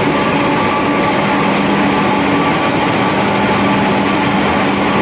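A row of pellet mill machines running with their large electric drive motors: a loud, steady industrial din with a few constant humming tones.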